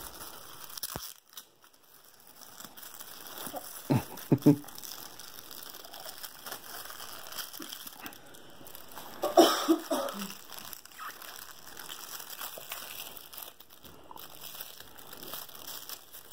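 Shiny holographic foil gift wrap crinkling and rustling as a small child pulls and tears at it to unwrap a present. There are two louder moments, about 4 and 9.5 seconds in, with brief voice sounds.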